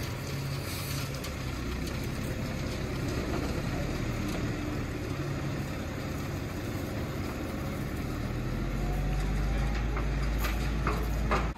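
Diesel engine of a concrete pump truck running steadily, its low rumble growing stronger over the last few seconds.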